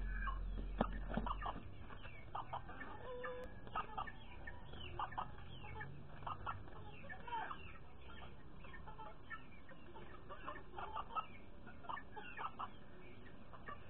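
Bantam chickens (kikirikís) clucking, with many short calls scattered throughout.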